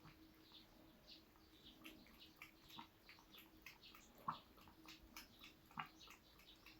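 Faint, scattered drips and small plinks of bathwater, the two plainest about four and six seconds in, over a low steady hum.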